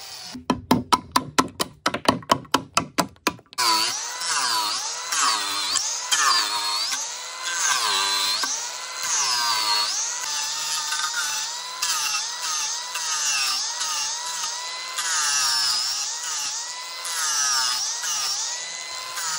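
Angle grinder cutting notches into a wooden beam. Near the start its disc chatters in a rapid run of knocks, about five a second. It then runs on with its pitch dropping each time the disc is pressed into the wood and rising again as it eases off.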